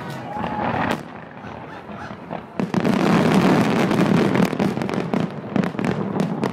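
Fireworks finale: a sharp bang about a second in, then a dense, loud volley of bursts from about two and a half seconds on, breaking into rapid scattered crackling pops near the end.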